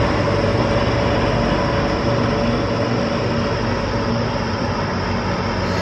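Steady drone of a motor vehicle engine running close by on the street, holding an even pitch.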